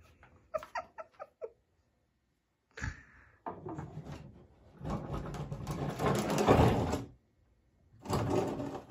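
Plastic trash can being gripped and shifted: scraping, rattling and knocking of the can and its lid, loud in two long stretches that stop suddenly around the middle and start again near the end, after a single knock.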